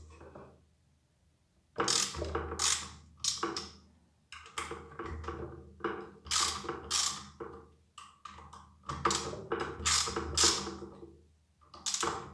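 Hand ratchet with an Allen (hex) bit clicking as it loosens the screws holding a pressure washer's pump head, in three runs of quick clicks with short pauses between.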